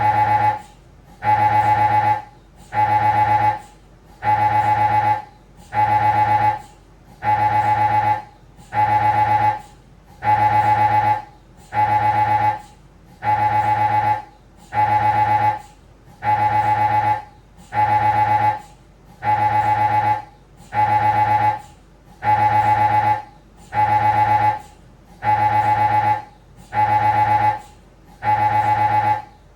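Siemens Magnetom Avanto Fit MRI scanner's gradient coils buzzing through a spine scan sequence. A loud, steady-pitched tone pulses on and off about once a second, each buzz lasting most of a second.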